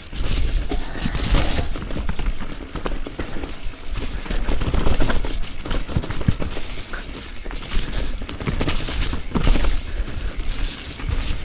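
Transition Relay e-mountain bike riding down a dirt trail: tyres on dirt with frequent irregular knocks and rattles from the bike as it rolls over roots and bumps. Wind rumbles on the microphone underneath.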